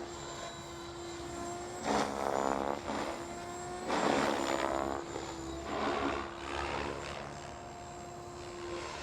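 Electric RC helicopter (Goblin Kraken 580) in flight: a steady rotor and motor whine, with three louder surges of blade noise about two seconds apart as collective pitch pumps load the rotor. The pumps are a test of a newly fitted one-way bearing, which is holding under the load.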